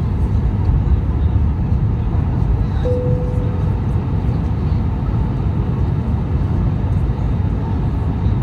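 Steady low rumble of engine and airflow noise inside an Airbus A319's cabin during descent. A brief steady tone sounds about three seconds in.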